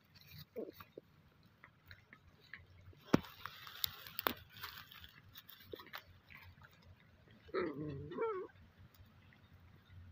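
Puppies play-fighting on dry straw and grass: scattered rustling and scuffling with a couple of sharp clicks, and a short, wavering puppy cry about three-quarters of the way through.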